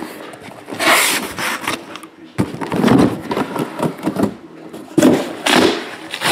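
Cardboard card case and foil-wrapped hobby boxes being handled, slid out and set down: three rustling, scraping bursts, about one, three and five seconds in.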